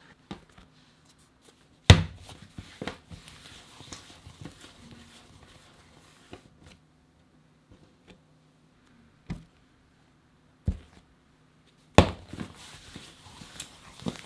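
Dough being handled on a marble countertop: two loud thumps, about two seconds in and near the end, and a few lighter knocks between, with soft rubbing as a dough piece is rounded under the hand.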